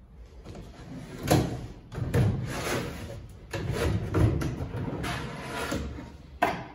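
MDF drawers being slid in and out on metal telescopic ball-bearing drawer slides, a rolling, rattling run with each stroke. A sharp knock comes about a second in and another near the end as a drawer seats.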